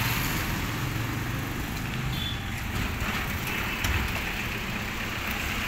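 Steady background noise with a low rumble and hiss, with a few faint clicks between about two and five seconds in.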